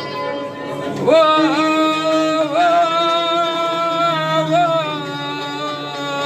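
Music: a singer holding a long, ornamented sung phrase in a Middle Eastern style, the voice entering about a second in and sustaining notes with small turns, over steady instrumental backing.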